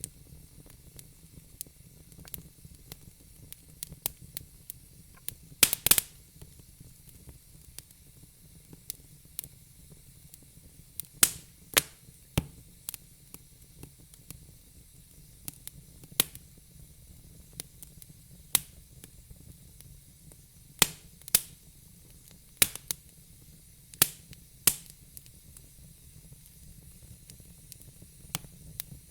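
Fire crackling: irregular sharp snaps and pops, about ten louder ones among many small ticks, over a faint steady hiss.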